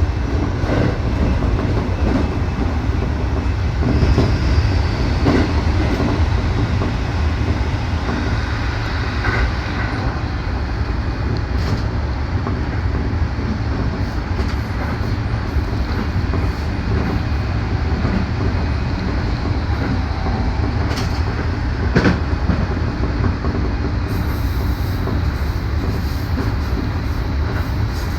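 Keikyu electric train running at speed, heard from inside the car: a steady rumble of wheels on track, with a few sharp clicks from rail joints.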